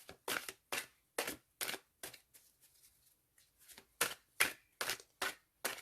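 A deck of tarot cards being shuffled by hand, a string of quick papery swishes about two or three a second, pausing briefly about halfway through.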